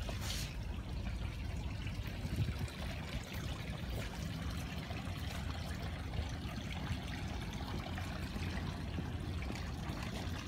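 Water trickling and dripping off the hull of a lifted boat into the water just below it, over a low steady rumble.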